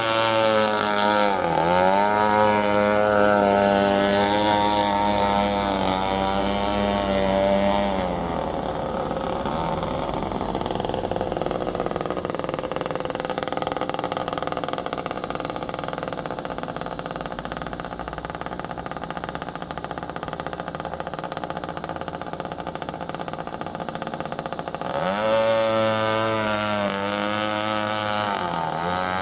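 Homemade RC boat's 21.2 cc Echo two-stroke weed-eater engine on a straight pipe, running at high revs on the water. The note grows fainter about eight seconds in as the boat heads far out, then comes back loud near the end. Its pitch dips and rises briefly near the start and again near the end.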